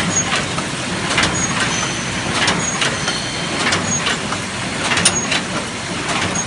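Paper cup making machine running: a steady mechanical clatter with a strong clack about every second and a quarter, lighter knocks between, and brief high-pitched squeaks repeating with each cycle.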